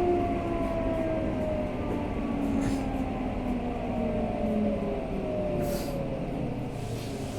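Tokyo Metro 05 series subway car's Mitsubishi IGBT-VVVF inverter and traction motors whining as the train brakes into a station. Several tones slide steadily down in pitch over the rumble of wheels on rail.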